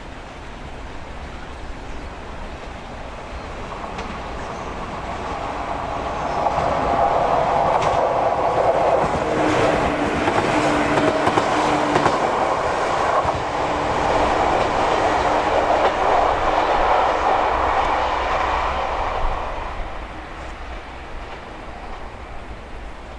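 Shinano Railway 115-series electric train approaching and running past close by. The sound swells from about four seconds in, is loudest for about thirteen seconds with a steady hum, and fades away near the end.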